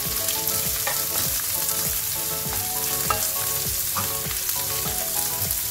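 Chopped onion, ginger and whole spices sizzling in hot oil in a nonstick frying pan, stirred with a spatula that scrapes across the pan about twice a second.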